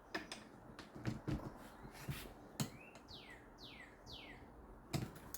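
Scattered clicks of a handheld ratchet tightening the fork bolts. About three seconds in, a bird gives four quick falling chirps.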